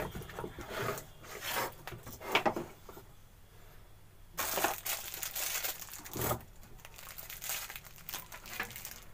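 A circuit board and its newly fitted transformer being handled and turned over on a workbench: irregular scraping and rustling with a few sharp clicks and knocks.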